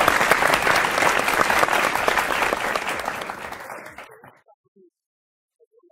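Audience applauding, many hands clapping at once, which fades away about four seconds in.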